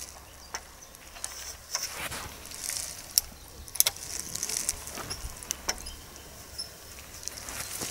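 Quiet lakeside ambience: a light breeze rumbling faintly on the microphone, with scattered short, sharp clicks and ticks.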